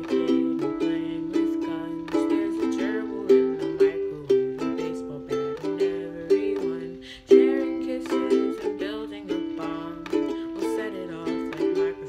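An acoustic string instrument being strummed through a chord progression in a small room, with a lower line that steps between notes under the chords.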